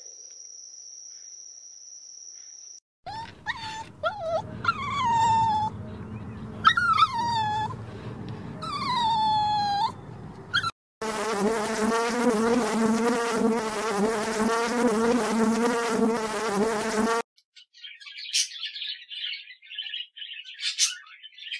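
A string of animal sounds. First a steady high whine for about three seconds, then a dog whining in long calls that fall in pitch. Then a steady, wavering buzz for about six seconds that cuts off suddenly, and near the end parrot chicks chirping and squawking in short high calls.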